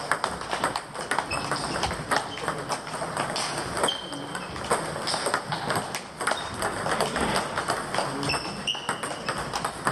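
Irregular clattering knocks and clinks of tools and glass, with short high ringing pings every second or two, against indistinct background voices.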